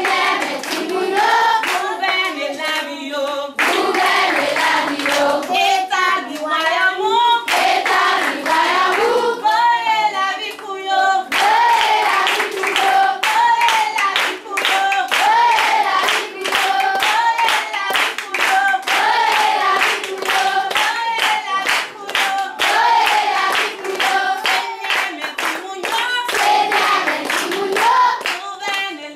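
A group of voices singing together, unaccompanied, with hand clapping. The first eleven seconds or so switch abruptly between short snatches of singing, then one song carries on with steady clapping to the beat.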